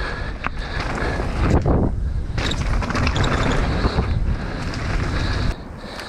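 Mountain bike riding down a rough dirt trail: tyres, chain and suspension rattling under wind buffeting on the action-camera microphone, with a brief lull about two seconds in and quieter from about five and a half seconds.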